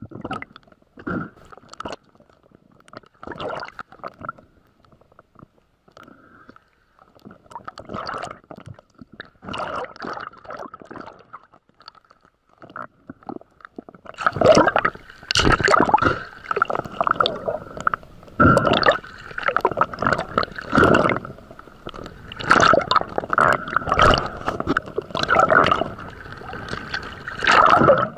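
Water gurgling and sloshing in irregular bursts, sparse at first and louder and busier from about halfway through.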